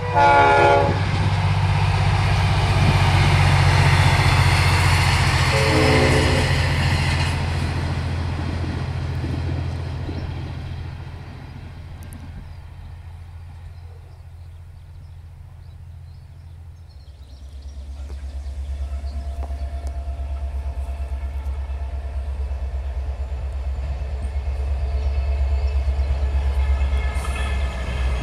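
Diesel-hauled V/Line passenger train passing with a steady low engine drone, its horn sounding two short blasts, at the start and about six seconds in. After a quieter lull, a diesel freight locomotive approaches with a low, rhythmic engine throb that grows louder toward the end.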